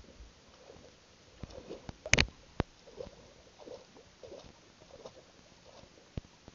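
Soft water splashes lapping against an inflatable inner tube every second or so, with a few sharp clicks and knocks close to the microphone, the loudest a short cluster about two seconds in.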